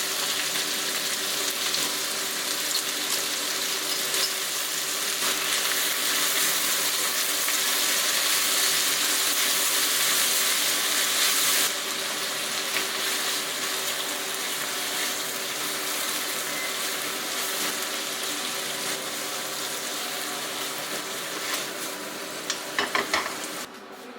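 Food sizzling steadily in a frying pan, the sizzle dropping a little about halfway through, with a few sharp clinks near the end.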